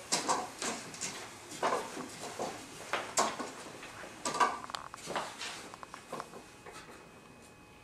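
Wooden warping mill turned by hand as a warp is wound, its frame giving a run of irregular wooden knocks and clicks that thin out near the end.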